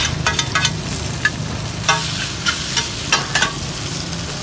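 Soft rice noodles (hủ tiếu) stir-frying in oil, with a steady sizzle over a low hum. A metal spatula clinks and scrapes against the pan again and again.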